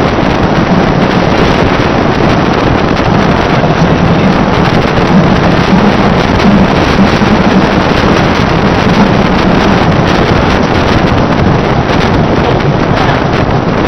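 Strong wind blasting the microphone in a loud, steady rushing roar, with a moving vehicle's engine and road noise under it.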